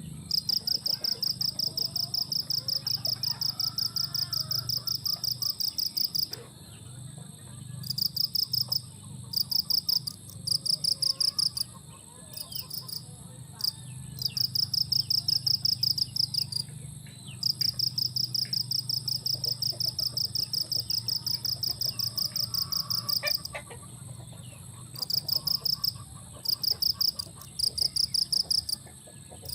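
Insect chirping in fast pulsed trains, each lasting from under a second to several seconds with short gaps between, over a steady low rumble, with faint bird calls underneath.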